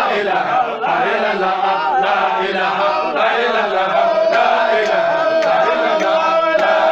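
A group of men chanting an Islamic devotional praise song together, with one voice holding a long steady note from about four seconds in.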